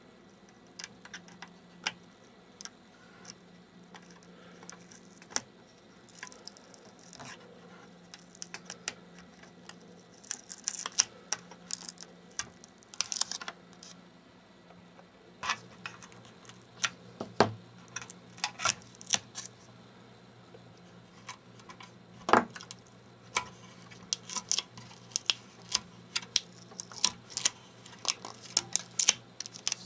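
Adhesive tape being slowly peeled off an internal cover of an LCD monitor: irregular crackles and small clicks, in clusters that come thicker in the second half, over a faint steady hum.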